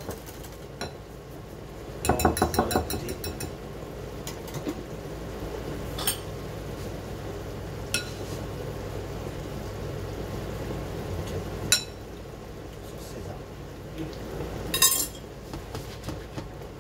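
Small metal spoon stirring a thick Caesar dressing in a glass bowl and clinking against the glass: a quick run of clinks about two seconds in, single clinks every few seconds after, and a short cluster near the end.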